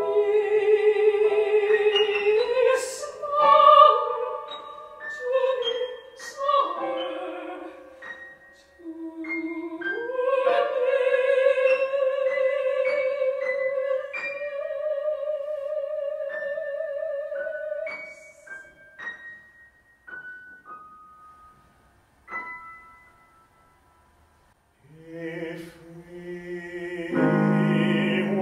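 A dramatic soprano sings an operatic line with a wide vibrato over piano accompaniment. Her voice stops about two-thirds of the way in, leaving a few piano notes to die away. Near the end a male voice starts singing with the piano.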